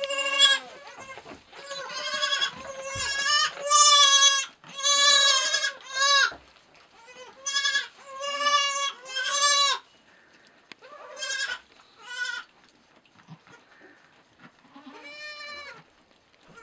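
Newborn goat kids bleating: many short, high, wavering calls in quick succession for the first ten seconds or so, then only a few scattered ones.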